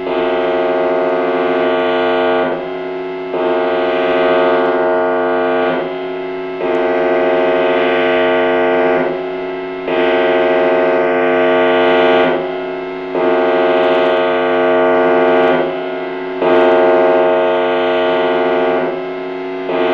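Outdoor warning siren sounding a steady, chord-like tone that swells and dips briefly about every three seconds, the pattern of a rotating siren sweeping past.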